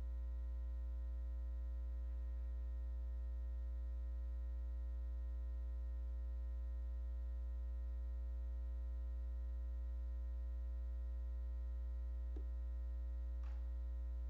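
Steady electrical mains hum with a ladder of overtones above it, and two faint clicks near the end.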